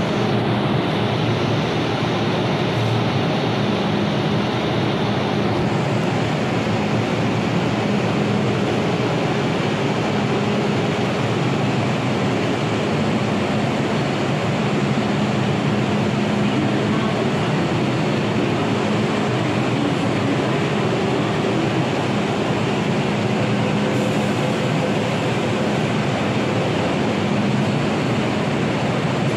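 MTR Tsuen Wan Line M-Train running: a steady hiss and rumble, with a low hum that swells and fades every few seconds.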